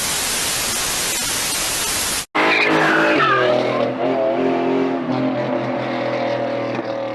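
A burst of even static hiss that cuts off suddenly about two seconds in. Then a car engine held at high revs, with a high tyre squeal early on that fades into the steady engine note.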